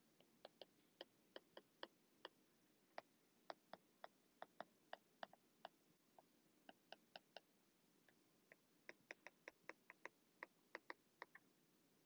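Faint, irregular clicks of a stylus tip tapping a tablet screen while handwriting text, in two runs with a pause of about two seconds in the middle.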